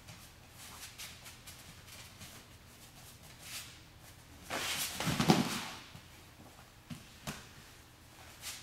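Feet and bodies scuffling on a training mat. About five seconds in comes a heavy thud and rustle lasting about a second as a partner is driven down onto the mat in a double-leg takedown. Two short knocks follow.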